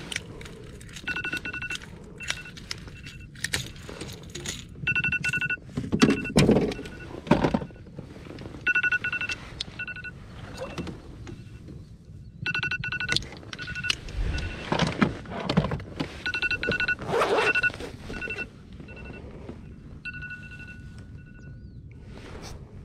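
Countdown timer going off: short electronic beeps in quick bursts, repeating every second or two. Several knocks and rustles of handling gear are heard over them.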